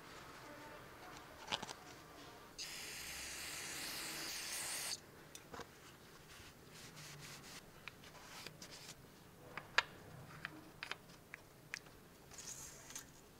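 Hand-work under a car's hood during an oil change: light clicks and taps of plastic parts as the oil funnel and filler cap are handled, and a shop towel rubbing over the cap. About three seconds in a steady hiss lasts about two seconds; near the end there is a short rustle as the dipstick is reached for.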